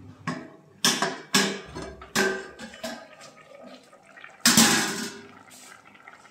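Steel pan lid knocking and clattering against a pan several times, the loudest clatter about four and a half seconds in as it comes off, over the bubbling of mustard fish gravy that has just come to the boil.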